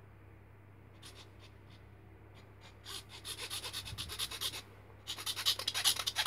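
Hand-held saw blade cutting through the plastic of an airsoft BB magazine: quick back-and-forth scraping strokes that start about three seconds in, pause briefly, and come back louder near the end.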